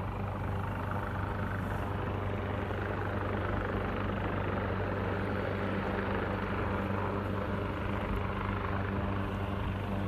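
A steady, low engine drone that holds at the same pitch and loudness throughout.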